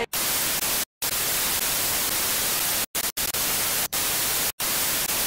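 Loud television static hiss, broken by several brief silent gaps.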